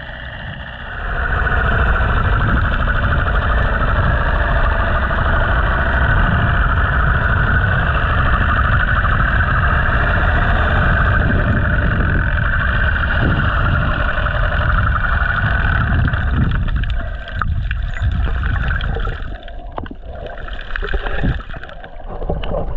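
Underwater sound of an outrigger boat under way: the boat's engine drones, muffled, through the water, and water rushes past the camera housing as the snorkeler is towed. It starts about a second in and holds steady, then breaks up and turns uneven in the last several seconds as the camera nears the surface beside the hull.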